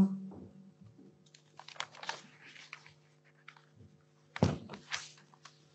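Rustling, small knocks and clicks of robed people settling into seats and at a desk, with one heavy thump about four and a half seconds in, over a low steady hum.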